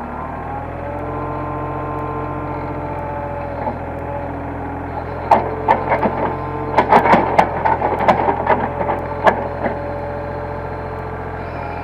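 Hitachi hydraulic excavator's diesel engine running under load, its pitch rising in the first second. From about five seconds in, a run of sharp metallic clanks and knocks as the machine works.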